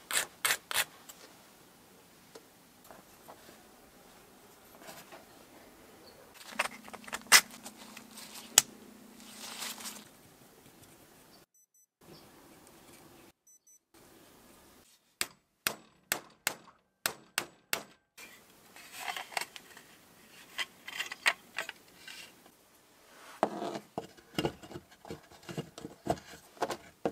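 Bench handling sounds of small metal and plastic parts: sharp clicks and taps, a quick run of about three clicks a second in the middle, rustling, and then duller knocks and scrapes as a small DC motor is seated in the saw's plastic housing.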